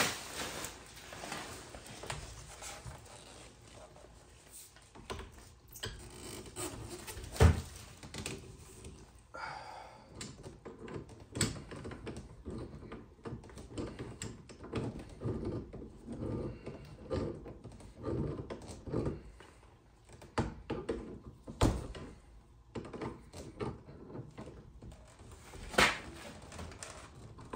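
Hands and a hand tool working PEX radiant tubing onto a threaded fitting on a brass heating manifold. Scattered clicks and knocks among low handling noise, the sharpest knock about seven and a half seconds in and others later.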